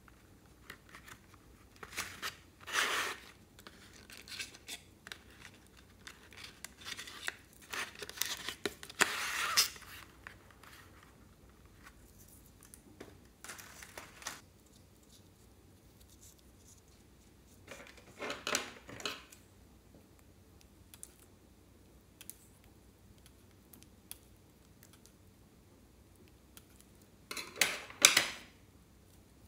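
Handling of a cardboard box of wax crayons and the crayons taken from it: several short bursts of scraping and rustling of cardboard and paper-wrapped crayons, the loudest near the end.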